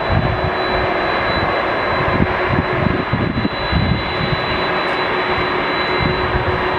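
Boeing 767 airliner's twin jet engines running at taxi power: a steady rumble with a thin, high whine held on one pitch, and irregular low buffeting.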